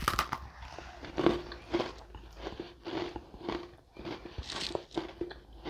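Someone chewing a bite of Oreo cookie close to the microphone: a run of short, irregular crunches, about two a second.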